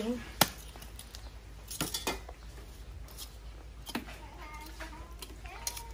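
Metal tongs clinking against a charcoal stove and lumps of charcoal: several sharp clicks a second or two apart.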